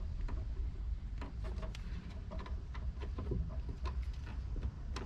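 Scattered light clicks and creaks from a hand pressing and rocking a plastic speaker adapter bracket taped and bolted into a bare car door, testing how firmly it holds, over a steady low rumble.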